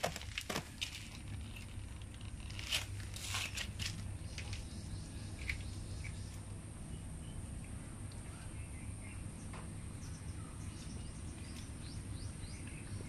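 Quiet rural outdoor ambience with a steady low hum, a few sharp crunching clicks in the first few seconds, and faint bird chirps later on.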